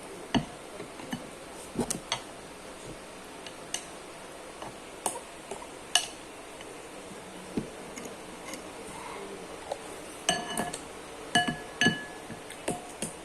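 Cutlery clinking and scraping against a glass or ceramic bowl while eating noodles and rice. Scattered sharp clinks with a short ring come faster near the end.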